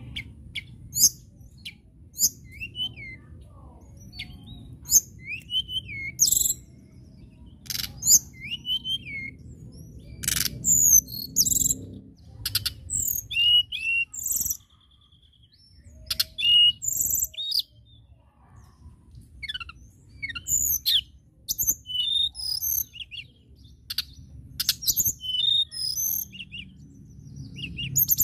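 Caged Cyornis blue flycatcher (tledekan) singing: phrases of high whistled notes with quick up-and-down slurs, sharp ticking notes and a short trill, separated by brief pauses.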